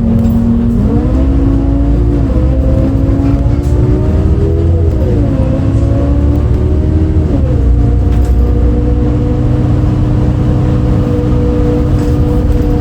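MAN D0836 six-cylinder diesel of a 2008 MAN Lion's City A37 articulated bus, heard from inside, accelerating while the ZF Ecomat six-speed automatic upshifts three times, the engine note dropping at each shift, then running at a steady pitch for the last several seconds. The engine has the unusual note that the recordist had never heard from a MAN before.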